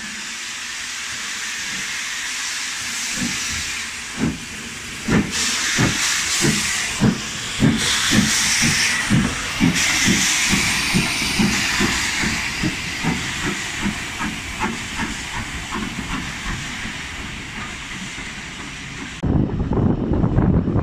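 LNER B12/3 steam locomotive 8572 pulling away: steam hissing, then loud exhaust chuffs that start slowly a few seconds in and quicken steadily as it gathers speed. Near the end the sound changes suddenly to the rumble of the moving train with wind on the microphone.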